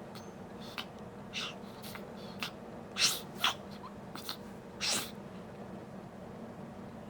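A baby's small sneezes: a few faint sniffs, then two loud sneezes close together about three seconds in and one more about two seconds later, over a steady low hum.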